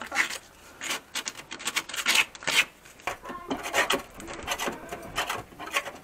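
Rust being scraped by hand off a Mazda MX-5 NBFL's steel underbody: a quick, irregular run of rasping strokes.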